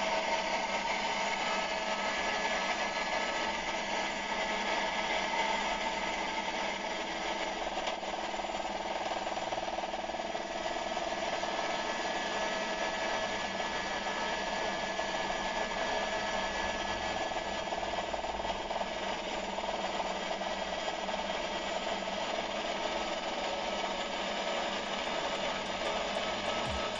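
Helicopter engine and rotor noise heard from inside the cabin in flight: a steady whine of several held tones over a rushing hiss.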